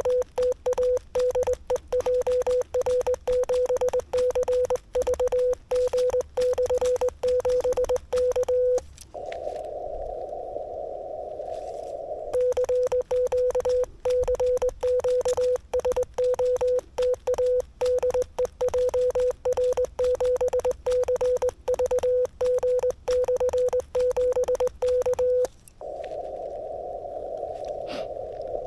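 Morse code sent by hand on a straight key: the transceiver's sidetone, one steady beep keyed on and off in dots and dashes, with the key's contacts clicking on each element. About nine seconds in, and again near the end, the sending stops for a few seconds and the receiver's band hiss, narrowed by the CW filter, comes up in its place.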